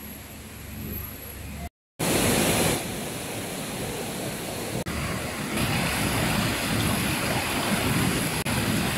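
Shallow rocky river rushing over stones, a steady loud rush of water that starts after a brief dropout about two seconds in.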